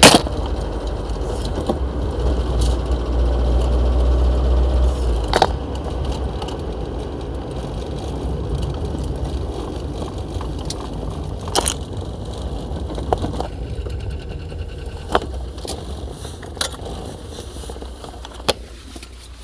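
Cabin noise of a moving 1986 Opel Corsa A: a sharp clatter at the start as the phone drops out of its windscreen holder, then steady engine and road rumble that eases after about five seconds, with a few short knocks and scrapes.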